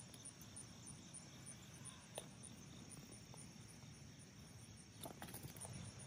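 Near silence: faint field ambience with faint, evenly repeating insect chirping, and a few soft clicks about two seconds in and again near the end.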